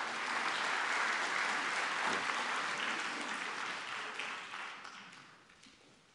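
Audience applause that swells quickly and fades out near the end.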